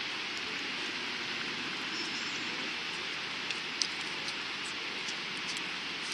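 Steady rushing of falling water, with a few faint clicks in the second half.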